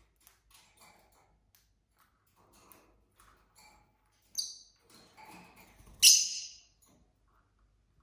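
Lovebirds making soft chirps and clicks, with a short sharp chirp about halfway through and then a loud, harsh screech about six seconds in.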